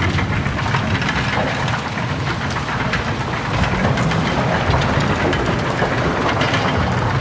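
Big Thunder Mountain mine-train roller coaster rumbling steadily along its track, with a constant rattling clatter of wheels and cars.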